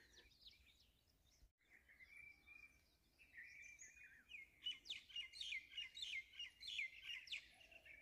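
Faint birdsong: thin chirps, then a quick series of repeated falling notes in the second half.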